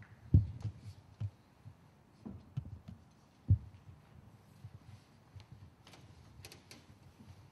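Dull thuds and knocks of dancers' hands, feet and bodies against a metal-framed cube and the stage floor, with two heavier thumps about half a second and three and a half seconds in, and light ticks later on.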